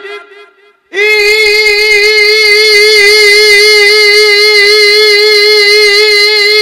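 A man singing one long, high held note into a microphone, with a slight wavering vibrato, starting about a second in. It is the opening of his imitation of a Bhandari (Maizbhandari) devotional song.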